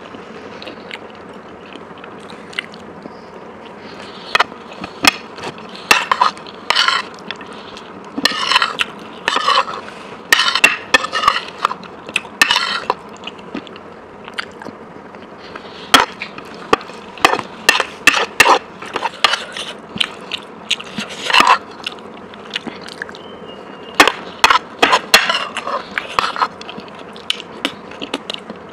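Close-miked eating of Indo-Chinese food: bites and crunchy chewing in clusters of quick crunches with short pauses between.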